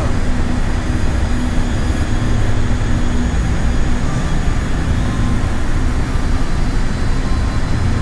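Steady, loud rumbling noise with a low hum and no distinct events.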